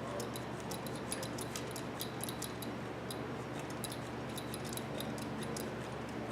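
A hand pipe cutter being worked around the pipe to cut it: a steady run of light, sharp ticks, a few a second and unevenly spaced.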